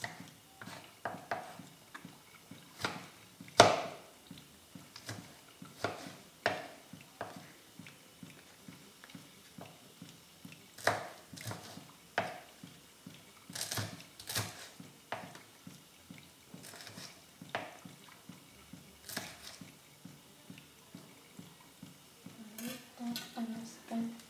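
Kitchen knife slicing shallots, garlic and chillies on a wooden cutting board: irregular knocks of the blade on the board, some louder than others.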